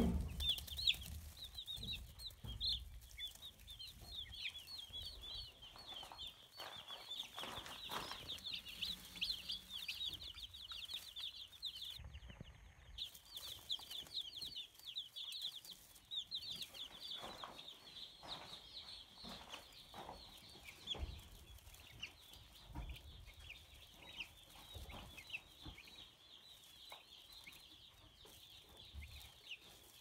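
A brood of baby chicks peeping continuously, many short high chirps overlapping. There are some low bumps in the first few seconds.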